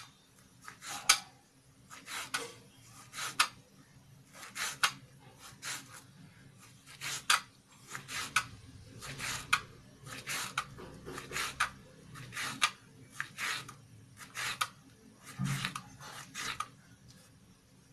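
Small kitchen knife slicing raw jackfruit into thin strips on a plastic cutting board: short, crisp cuts, each ending in a light tap of the blade on the board, about one or two a second.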